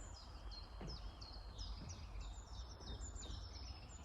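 Songbirds singing: a run of short, high, falling chirps repeating a few times a second, over a low steady rumble.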